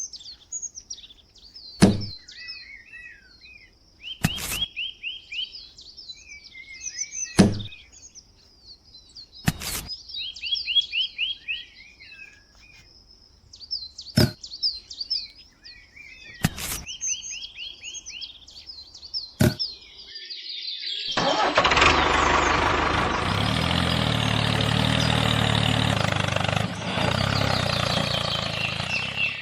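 Birds chirping and trilling, with a sharp knock every two to three seconds. About twenty seconds in, a small engine starts up and keeps running steadily, much louder than the birds.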